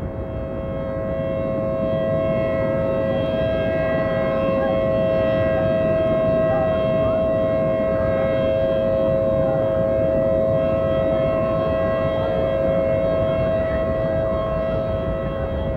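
Outdoor tornado warning siren sounding a steady, unbroken two-note tone that swells up over the first couple of seconds and then holds level, over a steady low rushing noise.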